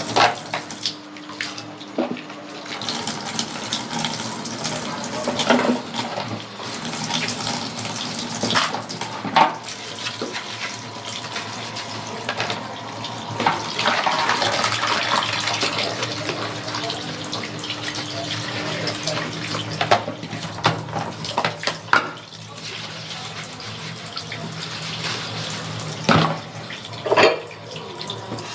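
Washing dishes at a sink: water running from the tap and splashing, with frequent clinks and knocks of dishes being handled, a few louder ones near the end.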